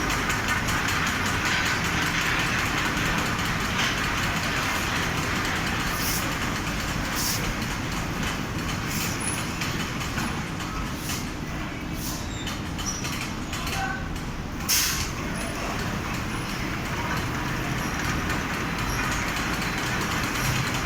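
Large fabric spreading machine running: a steady mechanical noise with a few sharp clicks, the loudest near the middle.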